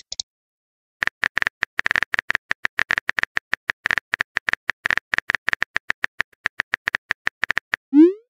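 Phone keyboard tap clicks, about seven a second, from about a second in until near the end, as a message is typed. They end with a short rising whoosh as the message is sent.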